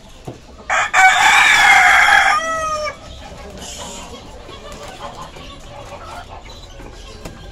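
A rooster crows once, starting just under a second in: a loud call lasting about two seconds, held steady and then dropping in pitch at its end.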